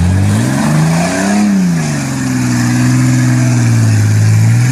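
Off-road 4x4's engine revving: it climbs sharply, peaks about a second and a half in, eases back and then holds at steady revs to the end.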